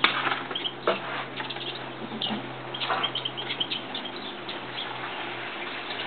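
Bearded reedling moving about on its fibre nest: irregular rustling and clicking of nest material, with a few brief, faint high chirps. A steady low hum runs underneath.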